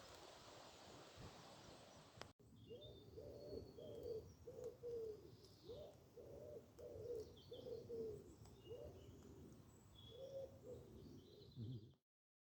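A hiss of noise, then after a cut about two seconds in, a bird's low cooing calls repeating about twice a second, with faint high chirps from small birds. The sound cuts off to silence near the end.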